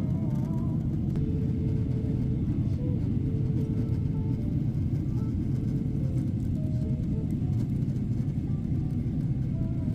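Steady low rumble of engine and air noise inside an airliner cabin in flight.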